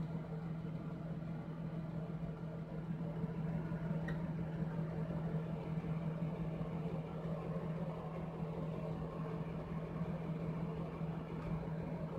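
Tap water running into a bathroom sink basin, with a steady low hum underneath, while a pop-up drain stopper is pressed and worked under the water; one faint click about four seconds in.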